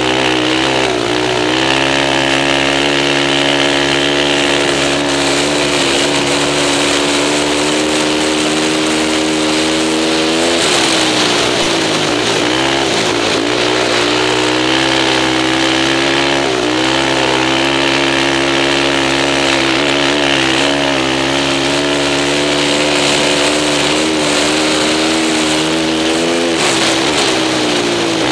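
Suzuki LTR 450 quad's single-cylinder four-stroke engine running hard at high revs, heard from the rider's seat. Several times the revs drop briefly and climb back up as the throttle is eased and reopened through the turns.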